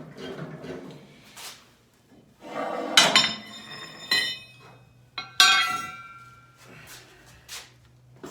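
Metal objects knocking and clinking: several sharp clanks that ring briefly, the loudest about three seconds in and again about five and a half seconds in.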